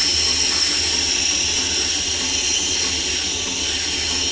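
A whetstone rubbed against a second stone to smooth its surface for a finer finish: a steady, hissing scrape.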